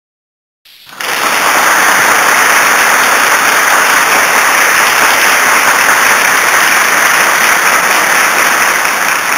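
Loud, dense applause that starts abruptly about a second in after silence and then holds steady.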